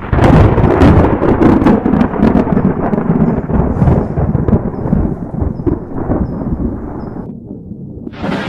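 A thunderclap: a loud, sudden crack with rapid crackling over the first few seconds, then a rolling low rumble that slowly fades. Just before the end a fresh loud rumble starts.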